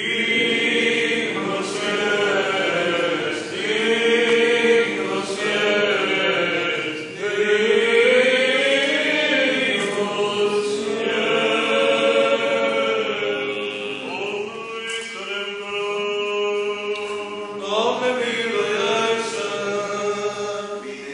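Orthodox Byzantine liturgical chant: voices singing a slow, melismatic hymn with long held notes, echoing in the church.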